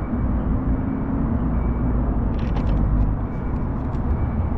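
Vintage tram giving a steady low rumble, with a faint hum that fades out about a second in and a few light clicks and rattles a little past halfway.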